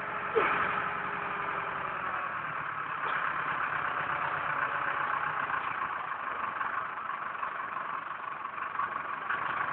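Digger engine running steadily with the bucket held raised.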